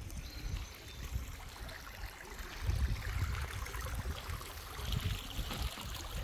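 Wind buffeting the microphone as a low, gusting rumble. It swells about two and a half seconds in and again near five seconds, over a faint outdoor hiss.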